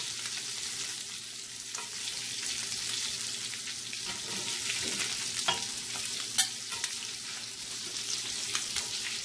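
Ground beef kofta frying in a hot pan: a steady sizzling hiss with a few sharper pops, the clearest about halfway through.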